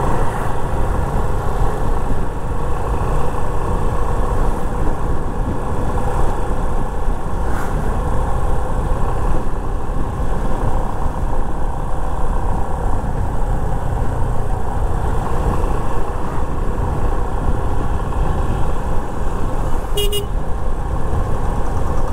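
Wind rushing over the microphone and a Yamaha FZ25's single-cylinder engine running steadily while riding along at speed. A brief horn toot sounds near the end.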